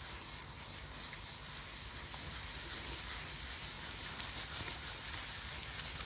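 Microfiber cloth rubbing back and forth over the casing of a Sony MiniDisc Walkman MZ-N710, wiping multi-surface cleaner into old sticky label residue: a steady, fine hiss.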